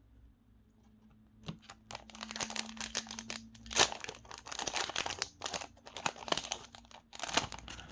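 Foil Pokémon booster pack wrapper crinkling and tearing as it is opened: a dense run of crackles that starts about a second and a half in and is loudest near the middle.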